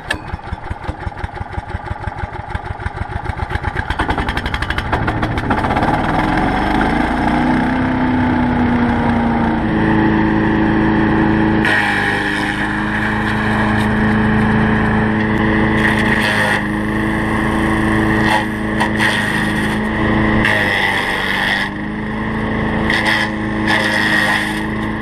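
Super Handy wood chipper's small gasoline engine starts and speeds up over the first several seconds, then runs steadily. From about twelve seconds in, sticks fed into the hopper are chipped in a series of loud bursts of grinding noise over the running engine.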